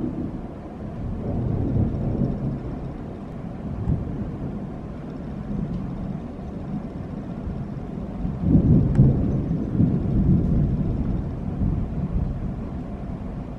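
Thunder rumbling in one long roll, swelling louder about eight and a half seconds in, then easing off near the end.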